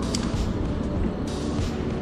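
Background music with a light repeating beat, over a steady low rumble of traffic on the road bridge overhead.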